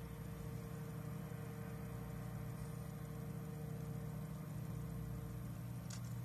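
An engine running steadily at idle with a low, even hum, and a couple of faint clicks near the end.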